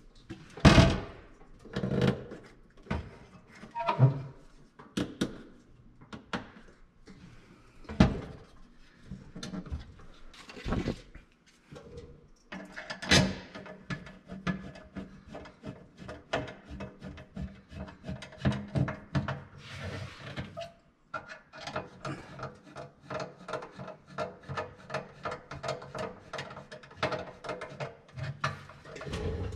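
Hand screwdriver working screws at the metal trim tab where the actuator mounts. A few sharp metal knocks and clinks come first, the loudest about 13 seconds in, then a long run of quick small scraping clicks as the screws are turned.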